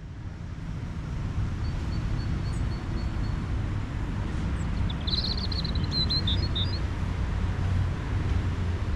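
Outdoor ambience with a steady low rumble, and a bird giving a quick run of high chirps about five seconds in.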